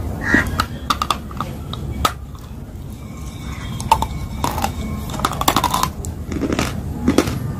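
Close-up chewing of a brittle blue chalky piece, with irregular sharp crunches and mouth sounds. The crunches are sparser in the middle and come thicker again in the last few seconds.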